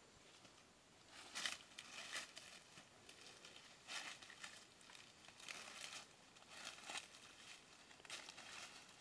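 Dry leaf litter rustling and crackling in short, faint bursts, about every second or so, as a small child's hands rummage through it.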